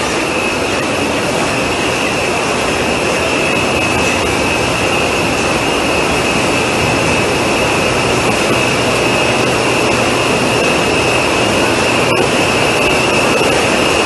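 Running poultry slaughter line machinery in the stunning, killing and bleeding section: a loud, steady machine noise with a continuous high whine on top.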